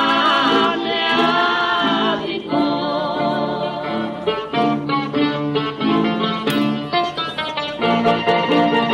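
Old rebetiko recording: a singer holds the end of a line with a wavering vibrato, then, after about two and a half seconds, a bouzouki takes over with a quick instrumental run of plucked notes.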